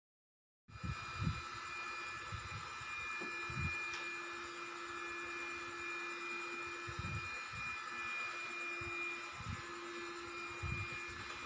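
Handheld cordless vacuum cleaner's small motor running with a steady whine, starting abruptly about a second in, with a few soft knocks from handling.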